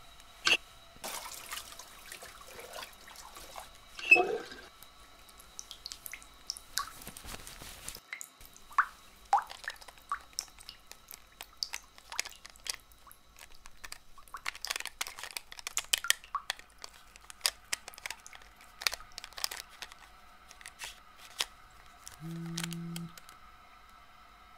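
Small clicks, taps and knocks of objects handled in a stainless-steel washbasin, with a stretch of running water from the tap in the first seconds that stops abruptly. Near the end, a short low electronic tone sounds once.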